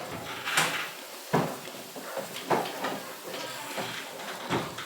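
A spoon stirring a pot of frying stew base, scraping against the pot in repeated strokes about once a second.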